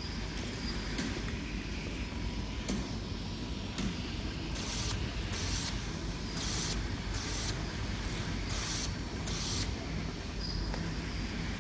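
Flat-surface carton labeling machine running: a steady low hum from the conveyor, with six short hisses in three pairs in the middle.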